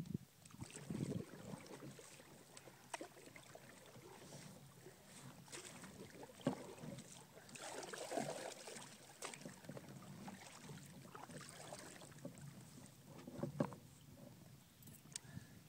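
Faint water lapping and splashing against a plastic sit-on-top fishing kayak, with scattered knocks and clicks as a paddle is handled against the hull.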